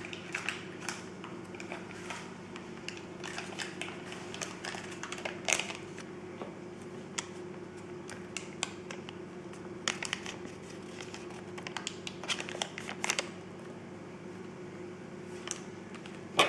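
Scattered small clicks and crinkles as a paper sachet is handled, opened and emptied over a ceramic mixing bowl, with light taps of the metal spoon in the bowl. A faint steady hum runs underneath.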